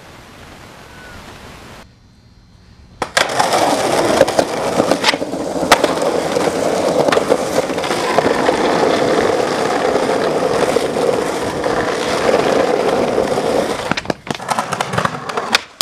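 Skateboard wheels rolling hard over rough pavement close to the microphone, with occasional clicks, starting after a brief quiet gap a few seconds in. Near the end the rolling drops away into a run of sharp clacks and knocks of the board on the ground.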